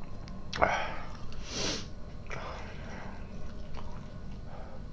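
A man sniffing and breathing hard through nose and mouth: three short noisy breaths in the first three seconds, the brightest a sharp hiss about a second and a half in.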